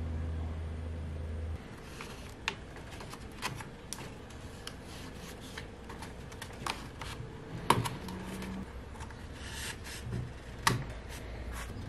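Light clicks and taps of thin spruce strips being pressed and set into a clear plastic wing-rib jig by hand, with two sharper knocks later on. A low hum cuts off about a second and a half in.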